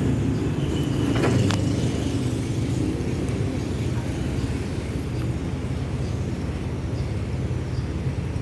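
Steady low rumble of a Boeing 737-800 airliner's jet engines passing overhead, swelling slightly about a second in, with a brief click.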